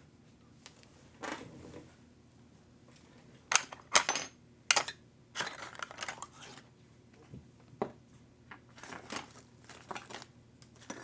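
Small metal parts and tools clicking and clinking against a hard work surface while being handled: three sharp clinks about three and a half to five seconds in, then lighter clusters of clatter.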